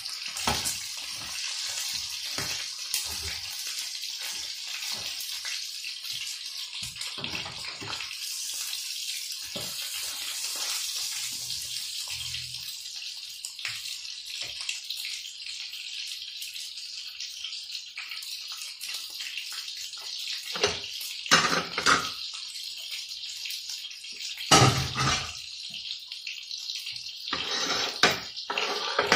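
Meats searing in a ridged grill pan on a gas burner: a steady sizzling hiss, with a few sharp knocks of utensil or plate against the pan in the last third.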